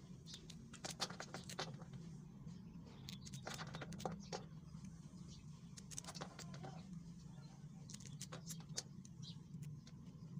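Kitchen knife cutting through a bundle of fresh moringa (drumstick) pods held in the hand: a run of faint, irregular crisp clicks and snaps as the blade goes through the pods, over a low steady hum.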